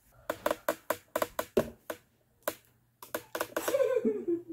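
A young girl laughing in short, choppy bursts, ending in a longer laugh that falls in pitch.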